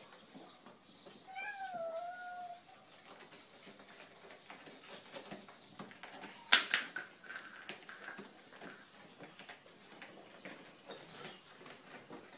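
A domestic cat meows once, a short bending cry, about a second and a half in. About six and a half seconds in a single sharp knock is the loudest sound, with faint clicks and scuffs on the tile floor around it.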